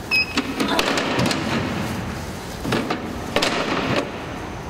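A plastic tub knocking and scraping on a weighing scale, with cloth rustling, as it is handled and wiped out; a brief high beep sounds right at the start.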